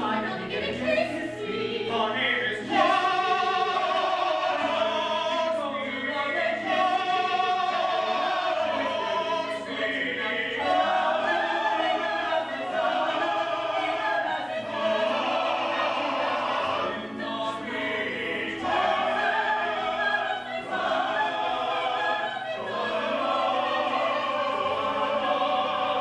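Live stage-musical singing: men's and women's voices singing together in an operatic style over instrumental accompaniment.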